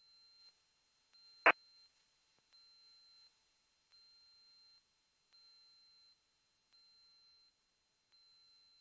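A faint electronic beep of several tones at once, repeating about every second and a half, with one sharp loud click about a second and a half in.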